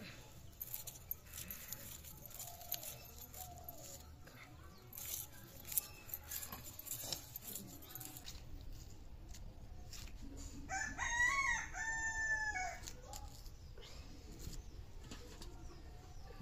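A rooster crows once, a single call of about two seconds with several bends in pitch, roughly eleven seconds in. Light clicks and taps of onions being peeled and handled run through the rest.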